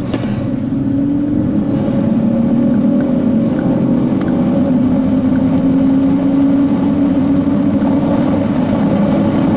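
Car engine drone and road noise inside the cabin of a moving car, steady, with the engine note rising a little early in the drive.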